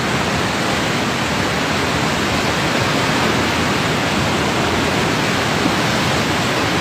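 Floodwaters of a swollen river rushing, a loud and steady even hiss with no breaks.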